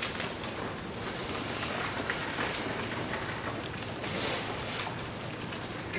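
Steady hiss of lecture-hall room tone, with a brief soft hiss about four seconds in.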